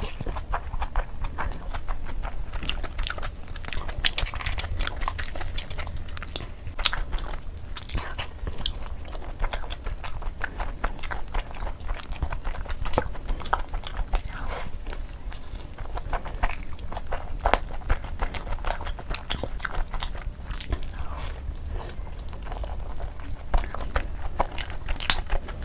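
Close-miked eating by hand: wet chewing, lip smacks and the squish of fingers working soft biryani rice and chicken, as a dense run of short irregular clicks over a steady low hum.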